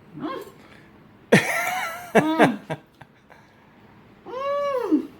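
Wordless vocal sounds of someone tasting and enjoying food: drawn-out appreciative "mmm" noises and exclamations with swooping pitch, four of them, the last a long rise and fall.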